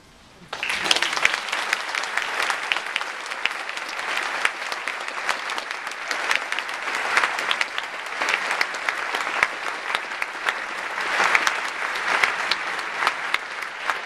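Concert audience applauding, breaking out suddenly about half a second in as the piece ends and continuing steadily.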